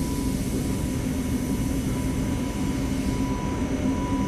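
Steady low mechanical hum with a rushing noise, and a faint high tone that comes and goes.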